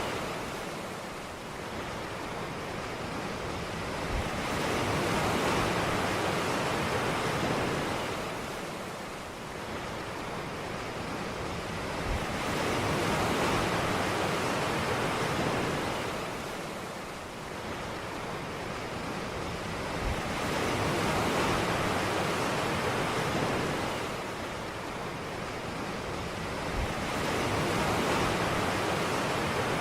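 Ocean surf washing onto a beach, its hiss swelling and fading as a wave comes in about every eight seconds.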